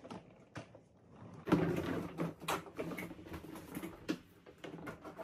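Portable twin-tub washing machine on a wheeled metal stand being shifted into place: a few light clicks, then from about a second and a half in a run of knocks and rattles of plastic and metal bumping.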